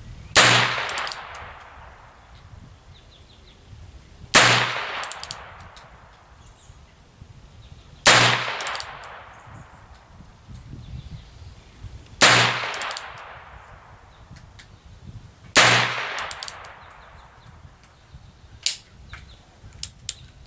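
Heritage Rough Rider single-action .22 LR revolver fired five times, shots about four seconds apart, each sharp crack trailing off in a short echo. A few small metallic clicks follow near the end.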